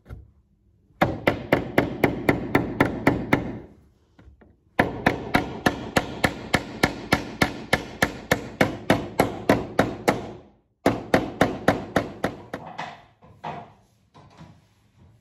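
A hammer drives a nail into a loose piece of old wooden wall panelling to refix it. The blows come in three runs of quick, even strikes, about five a second, with short pauses between runs.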